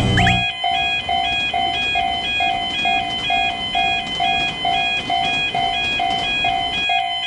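Japanese railroad crossing warning bell ringing 'kan kan' in an even, repeating clang of about two strikes a second, over a steady rushing noise.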